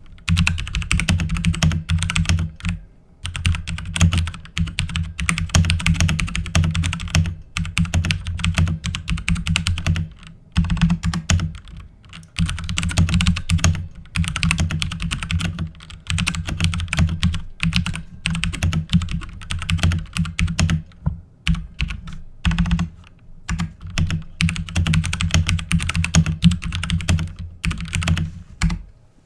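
Typing on a Sharkoon Shark Zone MK80 mechanical keyboard with Kailh Brown switches: fast streams of key clacks in runs of a few seconds, broken by brief pauses.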